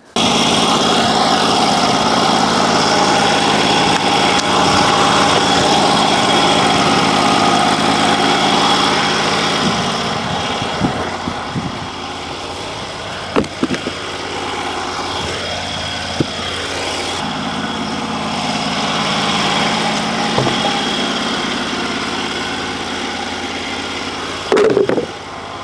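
Portable bandsaw mill running, its petrol engine at speed and the band blade sawing through a lemon-scented gum hardwood log. The noise starts abruptly, eases a little partway through, and has a few short knocks, one about halfway and one near the end.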